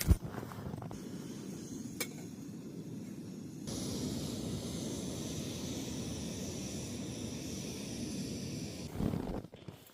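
Camp coffee being made: a click, then a steady low rush, joined about four seconds in by a louder even hiss that cuts off abruptly about a second before the end, followed by a short thump.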